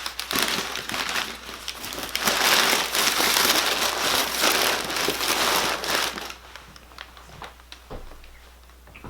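Packaging being crumpled and rustled by hand for about six seconds, loudest in the middle. It then stops, leaving a few faint taps and clicks.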